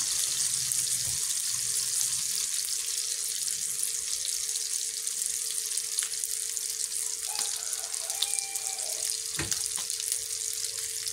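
Salted dried pangasius fillets sizzling steadily in hot oil in a small frying pan, with a couple of light clicks partway through.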